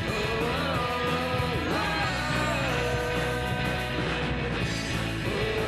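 Rock song with guitar and drums, a held vocal or lead melody line gliding between notes between sung phrases.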